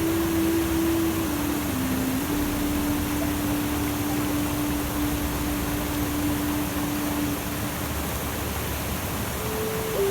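Steady rushing water-like noise under a slow melody of long held low notes that step down in pitch, die away about three-quarters of the way through, and resume near the end.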